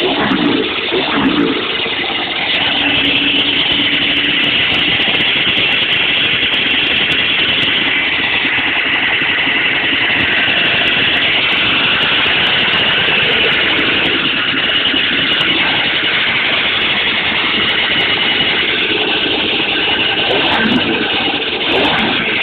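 1980 Ski-Doo Blizzard 9500 snowmobile's two-stroke engine, its carburettors freshly cleaned and tuned, running steadily at idle, with short revs of the throttle near the start and again near the end.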